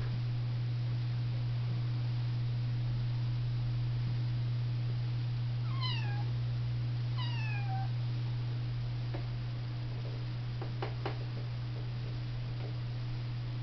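Russian Blue kitten meowing twice, about a second apart, each a short call that falls in pitch. A steady low hum runs underneath, and a few faint clicks come near the end.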